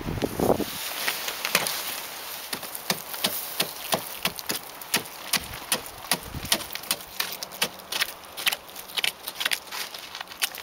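Pond ice being struck over and over with a gloved fist to break a hole through it and test its thickness: many sharp, irregular knocks and cracks, several a second, as the surface chips and splinters.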